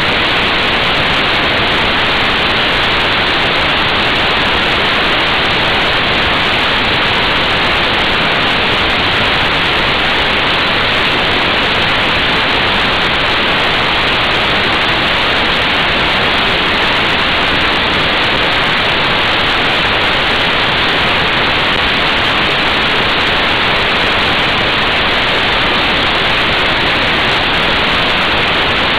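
Steady, loud wind rush over the microphone of an action camera on a motorcycle travelling at motorway speed, with no engine note or other event standing out.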